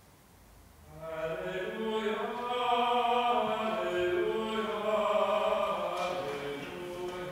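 Slow sung chant with held notes, starting about a second in: the sung responsorial psalm between the first reading and the Gospel acclamation at Mass.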